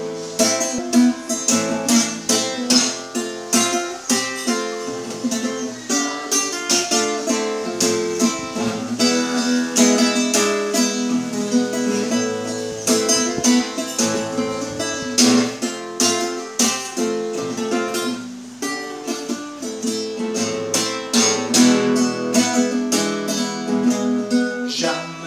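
Cutaway classical acoustic guitar played solo, chords strummed in a steady rhythm with repeated sharp strokes across the strings.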